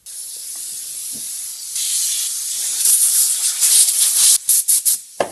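Compressed-air blow gun hissing as it blows dust off a brake lathe's cutting-head plate. The hiss grows louder about two seconds in and breaks into several short blasts near the end before cutting off, followed by a single knock.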